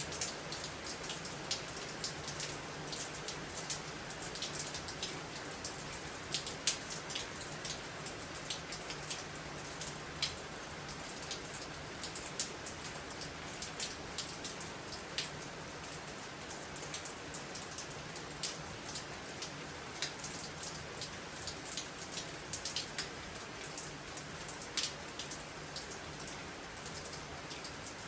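Steady rain falling during a storm, with frequent sharp drop hits.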